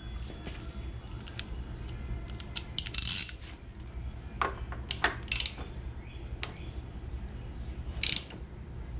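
Adjustable crescent wrench clinking on the steel front drive sprocket nut of a 2001 Yamaha Warrior 350 as the nut is snugged up. The sound is a scatter of sharp metal clicks and clinks, bunched about three, five and eight seconds in.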